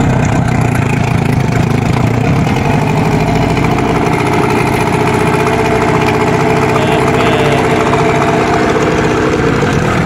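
Suzuki 15 hp outboard motor running steadily under way, on a test run after its gearbox gears were replaced. A steady whine joins the engine note a few seconds in and drops in pitch near the end as the engine slows.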